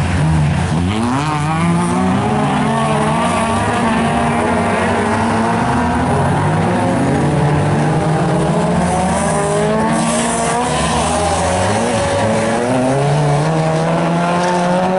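Engines of a pack of small hatchback Fol'Car racing cars on a dirt track, revving hard together, with several engine notes rising and falling over one another as the cars accelerate and lift.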